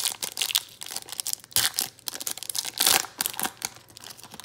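Foil trading-card pack being torn open by hand, its wrapper crinkling in quick sharp crackles. The loudest rips come about a second and a half in and again around three seconds.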